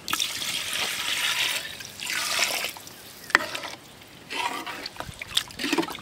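Water poured from a steel bowl into a large aluminium pot of chicken masala, in two main pours, as the water for the biryani is added. A single sharp clink comes about three seconds in.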